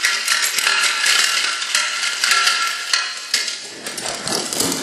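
Dense, continuous high clinking and rattling made of many small clicks, with a lower, rougher sound joining near the end.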